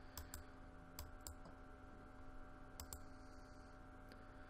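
Faint computer mouse clicks, several of them and some in quick pairs, over a low steady hum.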